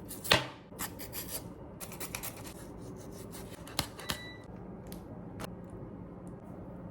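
Handling noises: scattered clicks, rubbing and scraping, with one sharp knock just after the start and two smaller ticks about four seconds in.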